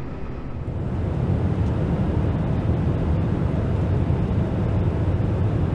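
Twin-engine jet airliner running at high power on a takeoff roll through a water-covered runway section: a steady low engine rumble with a hiss above it, growing louder about a second in.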